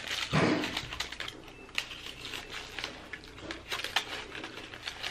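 Aluminum foil wrapped around a burrito crinkling as it is picked up and handled: a dense run of small crisp crackles, with a short low sound about half a second in.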